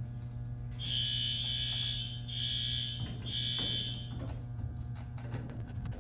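Fire alarm horn sounding three high-pitched blasts in quick succession, the first the longest, with brief gaps between them; it stops a little after four seconds in. A steady low hum runs underneath.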